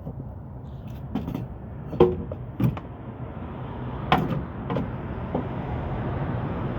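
Hand tools and engine parts being handled under the hood: a handful of scattered sharp clicks and knocks over a steady background hiss.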